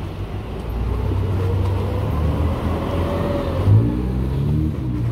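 A motor engine running past, its pitch rising and falling around the middle and rising again near the end, over a steady low rumble of wind on the microphone.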